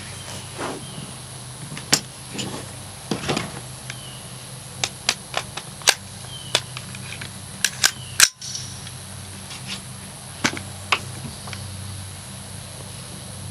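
Sharp metallic clicks and clacks of an AR-15 rifle fitted with a .22LR conversion kit being handled and readied to fire, about ten in all, bunched around the middle, with the loudest clack a little past halfway.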